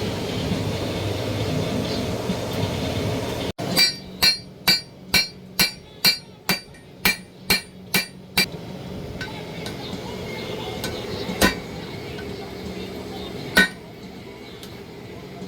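Hand hammer striking a hot Damascus steel blade on an anvil: about ten ringing blows at roughly two a second, then two single blows a couple of seconds apart. Before the blows, a steady rushing noise cuts off abruptly.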